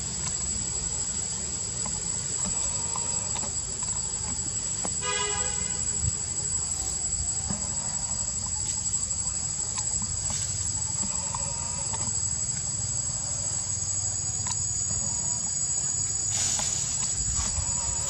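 Steady high-pitched drone of insects, with one short pitched call about five seconds in.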